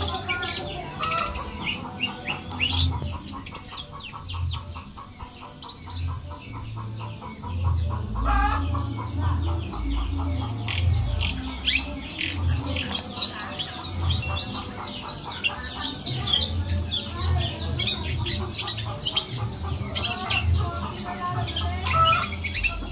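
Long-tailed shrike (cendet) singing in full voice: a fast, varied run of high chirps and harsh chattering notes, with a buzzy rattling trill a few seconds in. An uneven low rumble runs underneath.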